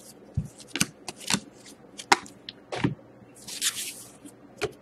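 Stack of 2012-13 Certified hockey trading cards handled by hand: cards flicked and slid against each other, a string of short sharp snaps and clicks with a longer swish about three and a half seconds in.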